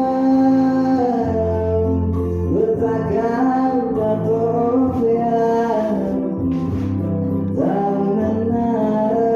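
A singer holding long notes over instrumental backing, sliding up into new phrases about two and a half seconds in and again near the end.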